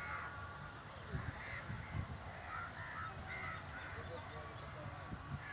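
Crows cawing, a short harsh call about every second, over a steady low rumble.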